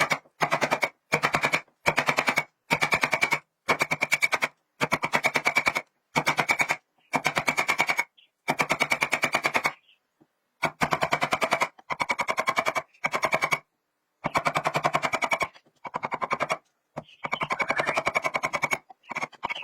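A power tool hammering very rapidly in short bursts of about half a second to a second and a half, with abrupt stops and restarts, about a dozen bursts in all.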